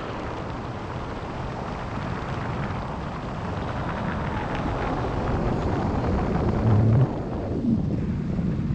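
Wind rushing over the camera microphone during a tandem paraglider flight: a steady buffeting that slowly grows stronger, with one louder gust about seven seconds in.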